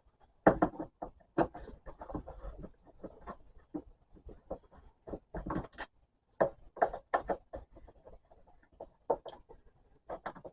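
Irregular clicks, knocks and rubbing of a vacuum cleaner's parts being pulled out and handled.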